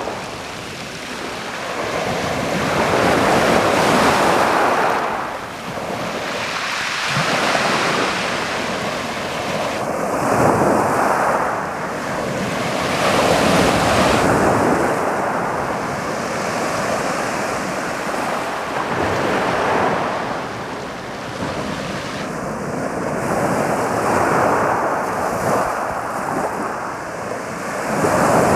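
Waves of a slightly rough sea rolling onto a pebble beach, each one swelling up and easing back every few seconds.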